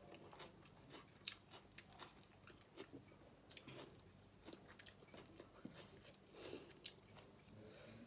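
Faint close-up chewing and lip-smacking of a person eating curry-fried shellfish, with scattered small wet clicks of the mouth.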